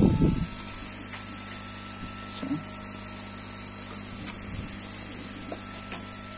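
A sheet of cardboard is lifted off the CNC's aluminium bed with a brief rustle and knock right at the start, then a few faint handling clicks, over the steady hum and hiss of the laser's air-assist air pump.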